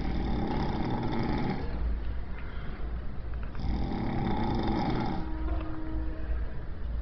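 Snoring: two long, rasping snores about three and a half seconds apart, each lasting about a second and a half, over a steady low hum.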